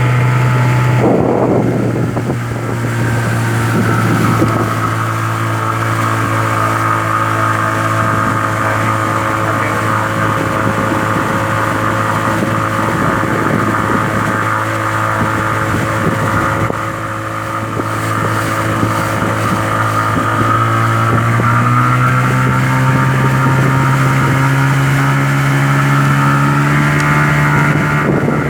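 A small 13-foot fishing boat's engine running steadily. Its note drops about a second in and rises again a little past two-thirds of the way through, as the throttle changes.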